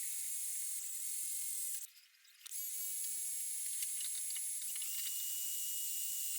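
Cordless drill running slowly, its bit cutting through steel lubricated with WD-40, as a thin high-pitched whine. It stops briefly about two seconds in, then starts again.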